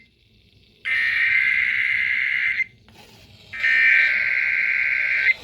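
Emergency Alert System SAME digital header: harsh, high-pitched buzzing data bursts, each nearly two seconds long with about a second of silence between them. Two bursts fall here, one starting about a second in and the next about three and a half seconds in.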